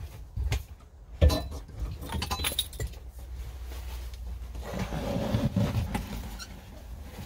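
Handling noises inside a UAZ 469's metal cab: a sharp knock about a second in, then light metallic clinks and rattles, and low shuffling rumbles near the end.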